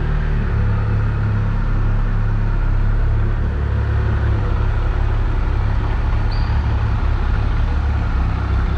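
Triumph Tiger Explorer 1200's three-cylinder engine idling steadily. The engine carries a muffled tick-tock knock that the mechanic suspects comes from a failed alternator bearing.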